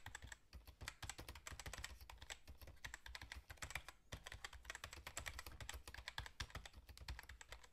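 Fast typing on a computer keyboard: a dense, continuous run of key clicks, many to the second.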